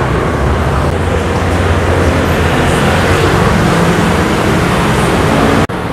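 Busy city street traffic: motor scooters and cars running past in a steady rumble of engines and tyres. The sound cuts out for an instant near the end.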